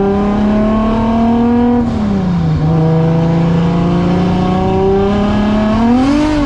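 Nissan 240SX drift car's turbocharged engine pulling hard under acceleration, heard from inside the stripped, caged cabin. The revs climb, drop sharply at an upshift about two seconds in, then climb again through the next gear, rising quickly near the end.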